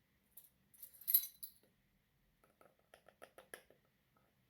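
Small kitchen clinks and taps from spooning curry powder into a glass bowl of chicken: one brighter clink about a second in, then a quick run of about eight light taps, a teaspoon knocking against the bowl or spice jar.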